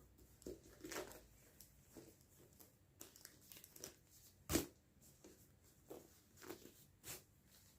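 Scattered rustling and light clicks from a bag and its packaging being handled, with one sharper knock about four and a half seconds in.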